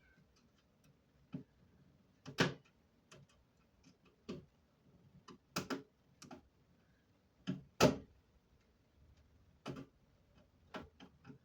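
A dozen or so sharp knocks and clicks at uneven intervals, as of hard objects being handled or set down; the loudest come about two and a half and eight seconds in.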